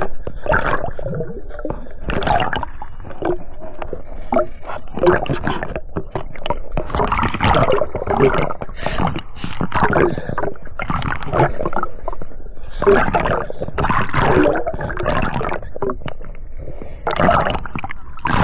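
Water sloshing and gurgling in irregular bursts.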